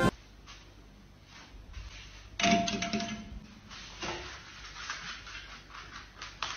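Soft knocks and scrapes of a small side table moving over a wooden floor, pushed along by a husky puppy underneath it. About two and a half seconds in there is a louder moment with a short high tone.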